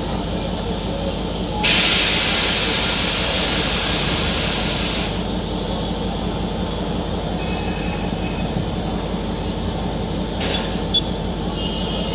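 Passenger train standing with its machinery running steadily. About a second and a half in, a loud hiss of compressed air bursts out, eases off slightly and cuts off sharply after about three and a half seconds. A single short knock comes near the end.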